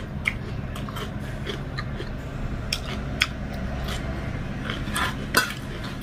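Close-miked eating by hand: soft chewing and mouth clicks, and fingers picking dhido and chicken curry from a steel plate, with scattered short clicks, the sharpest about three seconds in and again about five and a half seconds in, over a steady low hum.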